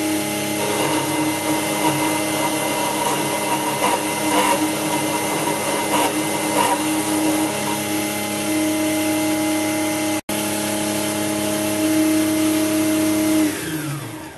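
Small electric motor of a belt-driven milling spindle attachment running steadily while a 4 mm milling bit cuts a slot in a brass piston, with a momentary break a little past the middle. Near the end the motor is switched off and winds down, its pitch falling.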